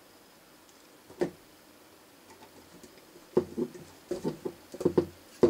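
Small screwdriver driving a small screw into a plastic model ladder frame. One click, then from about three and a half seconds in a run of sharp clicks and taps as the screw struggles to catch.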